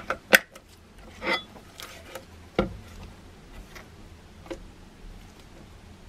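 Plastic battery cover of a Mainstays digital kitchen scale snapping into place on the scale's underside with one sharp click, followed by a few lighter plastic clicks and knocks as the scale is handled, turned over and set down on the bench.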